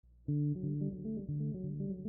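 Background music: plucked string notes in a repeating pattern, coming in about a quarter second in.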